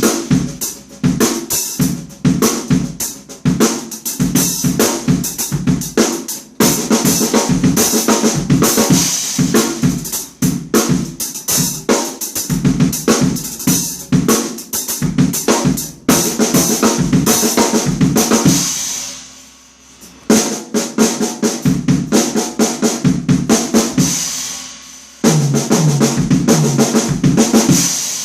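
Drum kit played fast: a gospel-chops fill of snare triplets and flam paradiddles broken up by pairs of bass drum kicks, over ringing cymbals. The playing stops briefly twice, about two-thirds of the way through and again near the end, letting the kit ring out before starting again.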